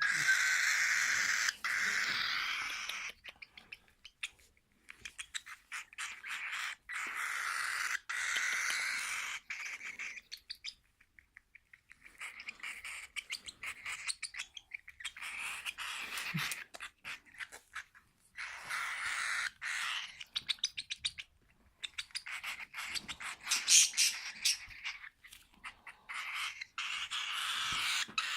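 Hand-fed parrot chicks making raspy, hissing food-begging calls while taking formula, in stretches broken by rapid clicking and short pauses.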